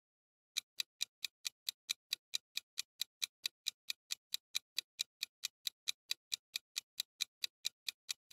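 Countdown-timer ticking sound effect: a steady, rapid clock tick at about four ticks a second, starting about half a second in.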